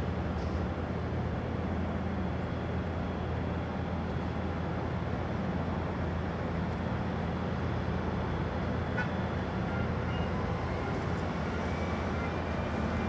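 Steady low hum and rumble of airport ground noise. A faint high whine comes in near the end.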